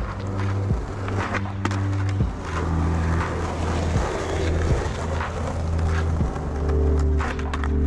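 Skateboard wheels rolling on asphalt, with several sharp clacks of the board, under background music of held low chords that change every second or two.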